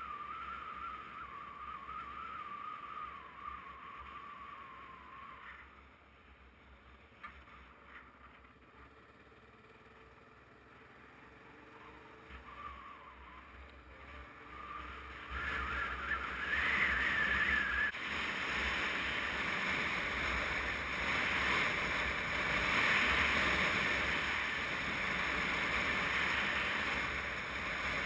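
Motorcycle ride heard from a camera on the bike: a wavering engine whine, a quieter stretch, then a rising whine as the bike speeds up. Wind rush over the microphone takes over and runs steady to the end.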